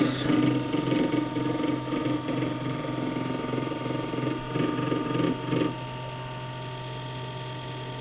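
Small electric fan in a fridge-built food dehydrator running with a rapid rattle: a blade is catching on the wooden mounting. A little under six seconds in the rattle stops, leaving the fan's steady hum.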